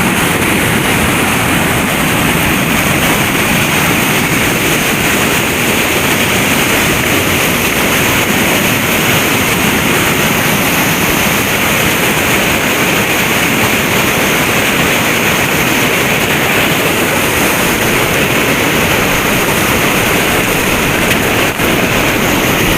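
Steady, loud rush of river water pouring through a rapid at an old dam.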